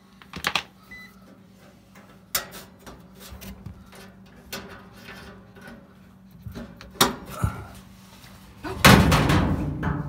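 Handling noise inside an electric dryer's cabinet: sharp clicks and knocks of metal spade connectors and wires as a connector is pushed back onto a thermal safety's terminal, followed near the end by a louder rubbing rustle of hands close by.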